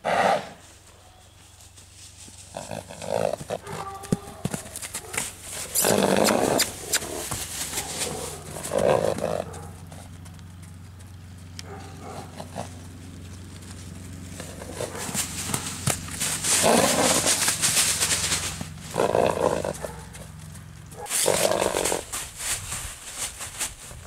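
Bay Arabian filly snorting, loud rolling snorts through her nostrils, repeated every few seconds.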